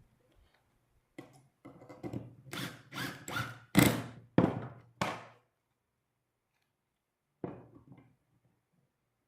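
Wooden knocks and thunks: a quick series of about eight over four seconds, the loudest near the middle, then one more later on.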